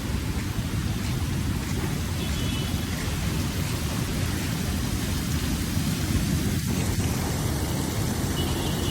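Sea waves washing onto a beach: a steady rushing surf noise with a heavy low rumble.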